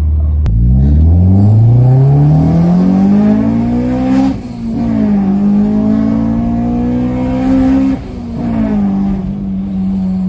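Honda Ballade VTEC's B16A four-cylinder heard from inside the cabin under hard acceleration: the engine note climbs steadily in pitch, drops sharply at an upshift about four seconds in, climbs again to a second upshift about eight seconds in, then holds and eases off near the end.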